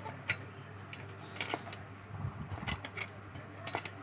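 A handful of light clicks and taps from small parts and hand tools being handled on an amplifier chassis during reassembly, over a steady low hum.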